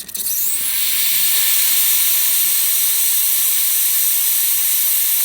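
Breville 900 espresso machine's steam wand opened and jetting steam with a loud, steady hiss that starts just after the opening moment.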